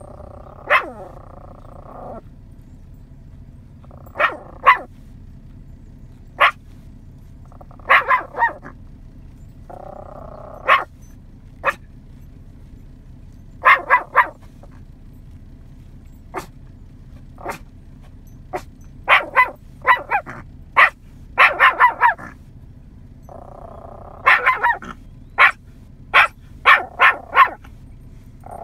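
Young Yorkshire terrier barking: short, sharp, high barks in irregular runs, coming thicker and faster in the second half.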